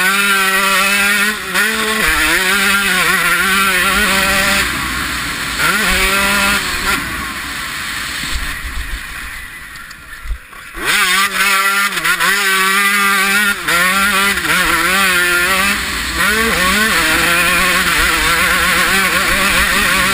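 1993 Honda CR125 single-cylinder two-stroke motocross bike ridden hard, its engine revving up and dropping back again and again as the rider works the throttle and shifts. The engine eases off to a quieter stretch about eight seconds in, then comes back on hard near eleven seconds.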